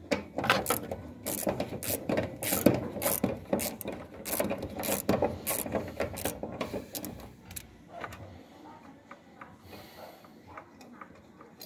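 Hand tools working a bolt: socket ratchet clicking and metal clanks, busy and irregular, easing off about eight seconds in.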